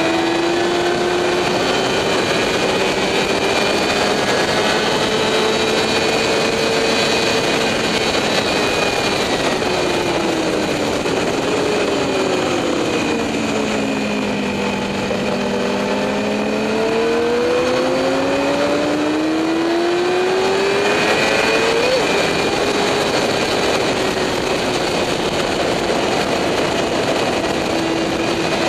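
Motorcycle engine heard from on board at track speed, under constant wind rush. The engine note climbs slowly, sinks smoothly as the bike slows, then climbs again. About 22 seconds in it drops suddenly at an upshift and then holds steady.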